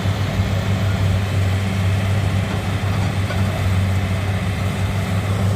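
Hitachi excavator's diesel engine running loud and steady, with a deep even hum.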